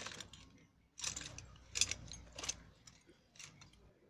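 Motorcycle front brake master cylinder and small metal tools being handled on a wooden table: an irregular run of clinks, rattles and scrapes in about five separate bursts.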